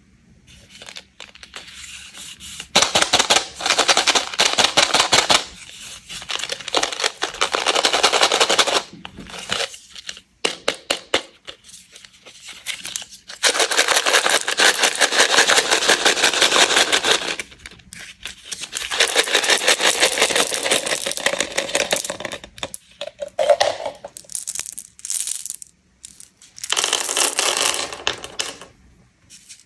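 Close-up handling of a Smarties cardboard tube, opened and its sugar-shelled chocolates rattled and poured out onto a wooden board. Long bouts of dense, rapid rattling and crackling, with short pauses between.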